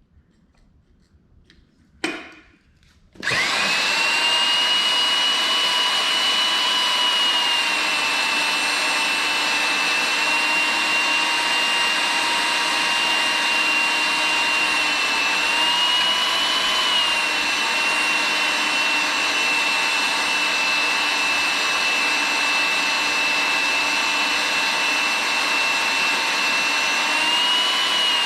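Magnetic drill: a short click about two seconds in, then its motor starts a second later and runs with a steady high whine, the pitch rising and dipping slightly a couple of times.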